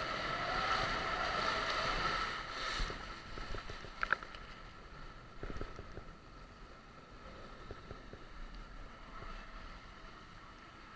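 Water rushing and a rider sliding down a water slide, loudest in the first few seconds inside the enclosed tube, then quieter as the ride opens into a bowl. A sharp knock about four seconds in.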